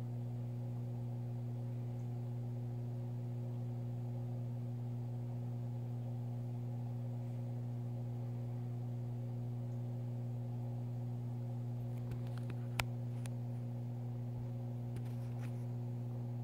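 A steady low electrical hum, with a few faint clicks near the end and one sharp click among them.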